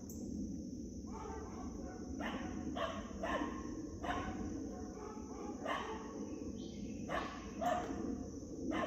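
A dog barking, about nine short single barks at uneven intervals of roughly a second.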